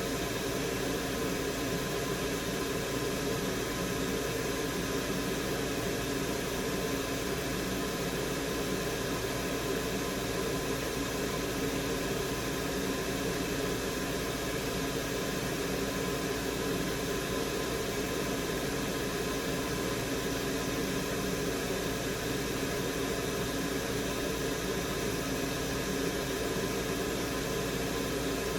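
Steady whir of a small electric fan, running evenly throughout with a constant hum of several steady tones.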